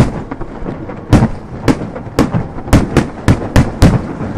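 Fireworks going off in an irregular series of sharp bangs, about ten of them, with a low boom trailing each one and the bangs coming faster in the second half.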